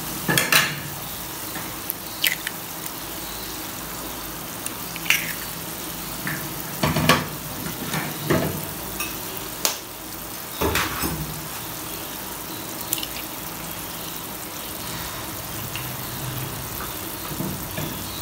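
Potato, onion and tomato mixture sizzling gently in a frying pan on a low flame, with a series of sharp taps and clicks as eggs are cracked and dropped into it.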